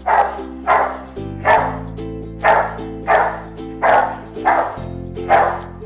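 A dog barking over and over, about one bark every 0.7 seconds, over background music with steady held chords.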